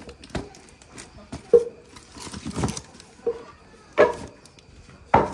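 Taped cardboard shipping box handled and turned over in the hands: rustling of cardboard and plastic tape with several sharp knocks.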